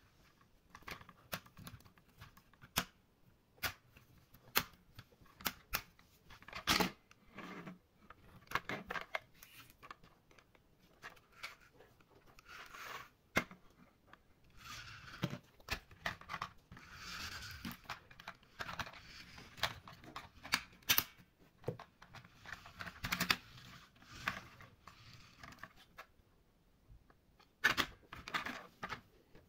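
Hard plastic toy vehicles being handled on a tabletop: irregular clicks and knocks of plastic parts, with a few stretches of scraping and rolling wheels.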